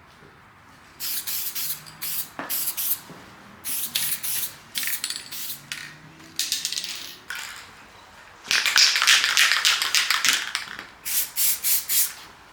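Aerosol spray can spraying primer onto a plastic door handle in a string of short hissing bursts, with one longer spray of nearly two seconds about two-thirds of the way through and a quick run of puffs near the end.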